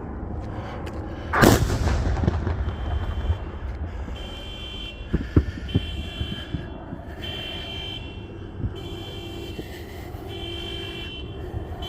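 A homemade soda-can salute going off with one loud bang about a second and a half in, followed by a long rumbling echo. A few sharp cracks follow about four seconds later, then an electronic alarm sounds in on-off pulses of a high tone.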